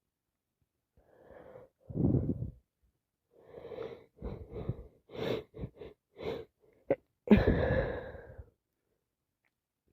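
A person sneezing from a cold and allergies: a sneeze about two seconds in, then a run of short catching breaths building up to a louder sneeze about seven seconds in.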